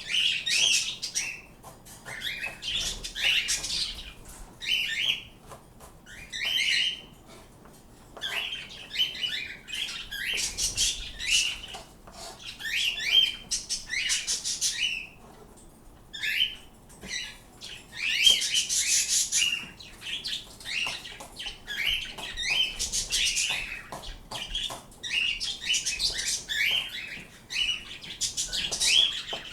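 Pet birds chirping and calling, a steady string of short, high chirps with brief pauses between them.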